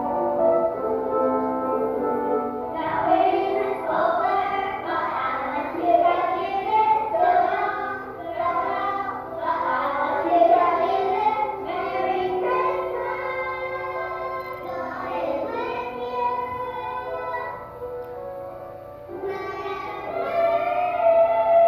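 Children singing a song over instrumental accompaniment; the accompaniment plays alone at first, the voices come in about three seconds in, and the singing breaks off briefly near the end before resuming.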